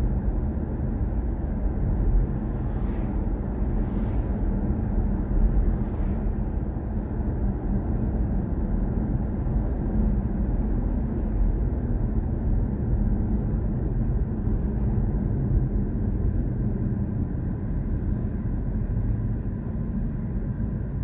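Steady low road and tyre rumble heard inside the cabin of a moving BMW i4 M50 electric car, with no engine sound and a faint steady hum underneath.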